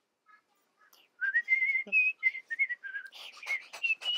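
A person whistling a short tune, starting about a second in as a run of clear notes that step up and down in pitch. From around three seconds in the notes turn breathy.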